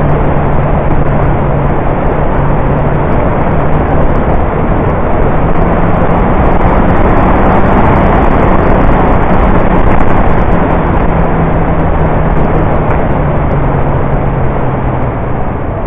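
Motorcycle riding downhill with loud wind rushing over the action camera's microphone and the engine's steady hum underneath, its pitch rising slightly about five seconds in and dropping back near the end.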